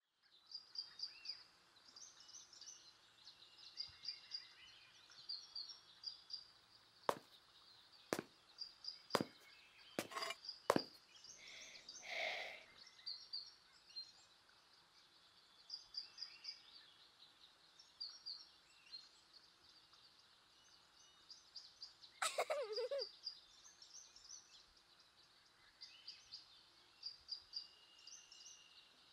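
Small birds chirping in repeated short high bursts as quiet background ambience. About a quarter of the way in come about five sharp knocks roughly a second apart, then a short noisy burst, and about three quarters through a quick falling sweep.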